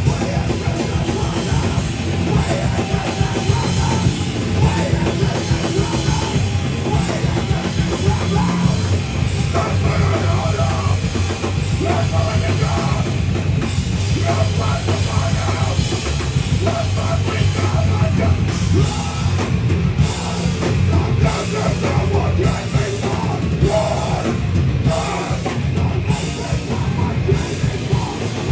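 Heavy band playing live and loud: distorted guitars and bass over a drum kit, with no break in the music.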